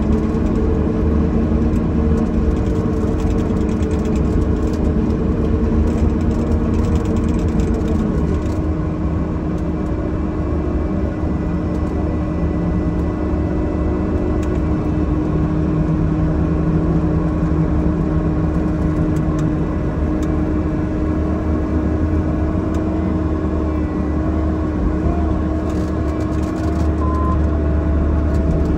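Bobcat E50 mini excavator's diesel engine running steadily, heard from inside the cab, with a hydraulic whine whose pitch shifts as the boom and bucket are worked.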